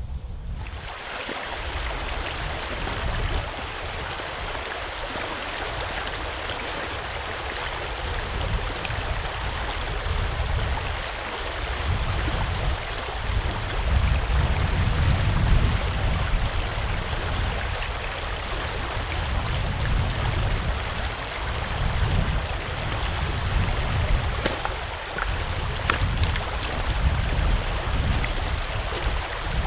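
River water rushing over shallow, stony riffles: a steady rush with a fluctuating low rumble underneath.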